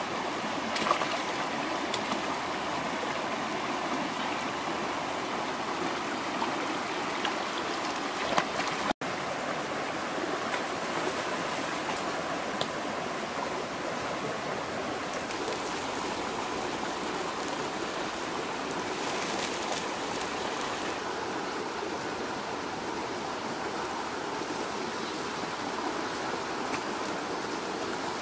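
Shallow river running over rocks, a steady rush of water, with a few small splashes near the start. The sound drops out for an instant about nine seconds in, then the water goes on unchanged.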